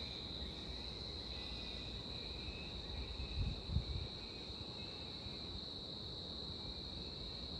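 Insects trilling in a steady high-pitched drone over a low rumble, with a couple of soft low thumps about halfway through.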